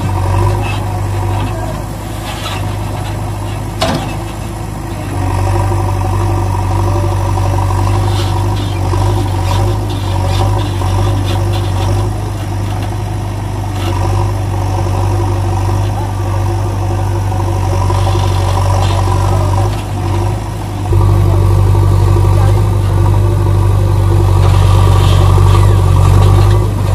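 Tractor engine running steadily at idle. It gets louder about five seconds in and again about twenty seconds in.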